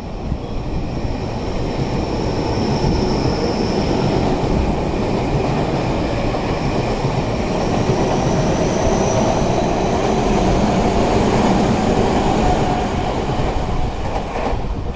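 Tobu 50050 series electric train running past the platform, with a heavy wheel-and-rail rumble and a thin, high squeal over it. The sound swells over the first couple of seconds, holds while the cars go by, and eases off near the end.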